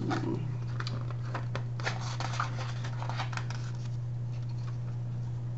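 Pages of a picture book being turned and handled: a few soft paper rustles and clicks over the first three seconds or so, above a steady low hum.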